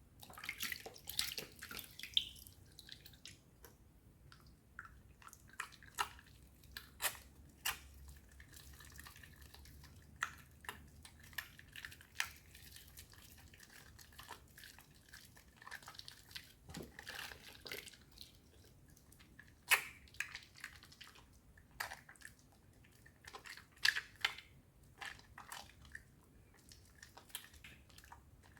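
A wet bar of soap being lathered into thick foam. It gives irregular wet squelches, clicks and crackles, bunched near the start and again later on.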